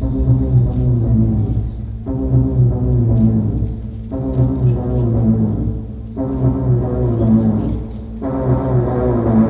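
Loud dance music with a heavy bass, its upper layer dropping out for a moment and coming back in about every two seconds.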